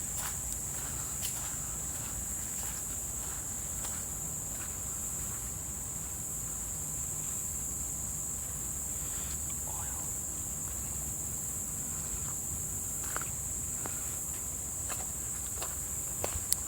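Steady high-pitched insect chorus with scattered footsteps and a low rumble, plus one sharper click near the end.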